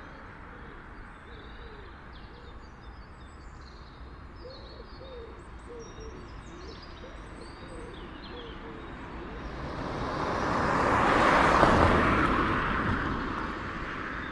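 Outdoor ambience of birds chirping and calling over a low rumble. Late on, a rushing noise swells up to a peak and fades away.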